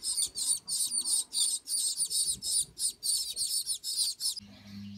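Gouldian finch nestlings begging: a fast run of short, high, rasping calls, about four a second, the sign of hungry chicks asking to be fed. The calls cut off suddenly a little after four seconds in, and a steady low hum follows.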